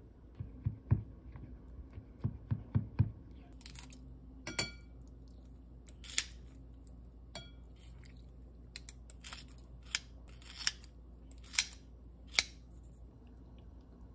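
Kitchen scissors snipping through ripe yeolmu (young radish) kimchi in a glass bowl: about ten sharp, crisp cuts spaced roughly a second apart. A couple of cuts carry a short ring as the metal blades touch the glass. A few dull knocks come in the first three seconds before the cutting.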